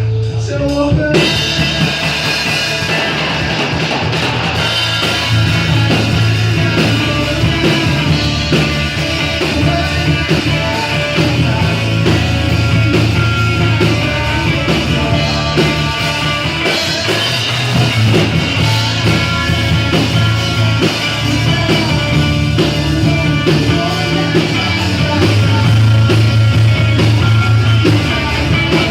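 Live rock band playing with drum kit, guitars and vocals; the full band with drums comes in about a second in and plays on loudly.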